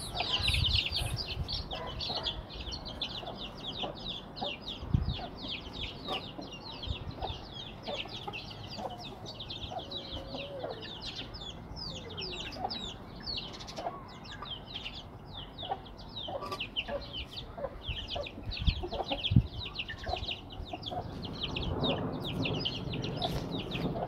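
Chicks peeping continuously in many rapid, short, high chirps, with a hen's lower clucks now and then.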